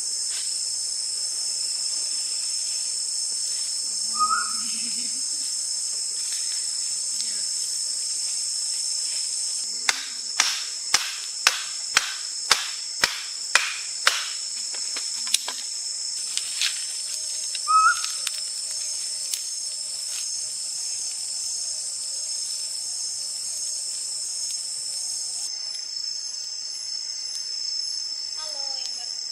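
Dense night chorus of forest insects and crickets, a steady high-pitched ringing drone. About ten seconds in, a run of about ten sharp clicks comes roughly twice a second, then a few more. Two short chirps fall near the start and the middle.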